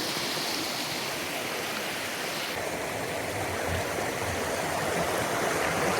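River water flowing with a steady rushing sound; its higher hiss drops a little about two and a half seconds in.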